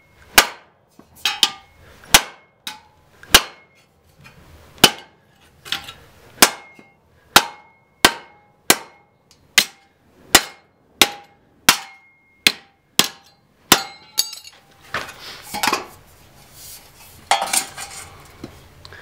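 Forged spring-steel tomahawk chopping again and again into a steel sheet on a wooden stump: about eighteen sharp metallic strikes, roughly three every two seconds, some leaving a brief ring. About fourteen seconds in the chopping stops and gives way to rougher scraping and handling sounds.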